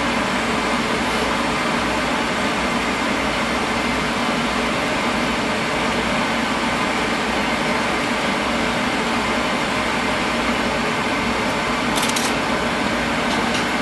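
Residential oil boiler's burner running steadily, an even constant rush with no change in level; the unit has just been tuned and tested as burning clean. A few faint clicks come near the end.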